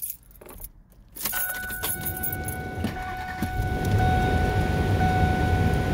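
Keys jingle at the ignition. About a second in, the Ford F-150's engine starts and runs on at a steady idle of about 1000 rpm on its newly replaced idle air control valve. A steady high tone sounds over the engine once it is running.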